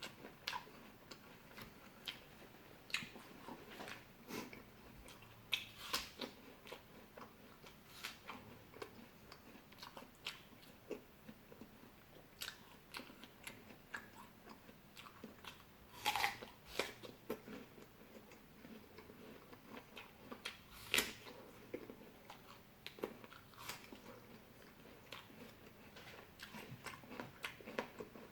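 Close-miked chewing and biting of fresh fruit: irregular soft, wet crunches and mouth clicks, with two louder bites about 16 and 21 seconds in.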